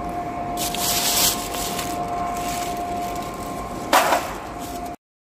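Steel balls and plastic spacer blocks being pushed by hand along the raceway of a slewing ring bearing: a rubbing, rolling rattle in bursts, with a louder knock about four seconds in.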